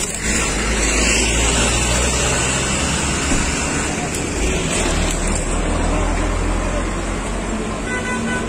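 Car engine running amid a crowd jostling around the car, with indistinct voices and a heavy low rumble from the microphone being knocked about.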